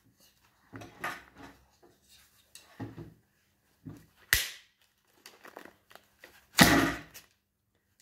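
Handling knocks and clicks from the xSPINE vest's telescopic carbon-fibre front bone as it is worked loose and slid outward by hand. It comes as a series of short knocks, with a sharp click about halfway through and the loudest knock a little later.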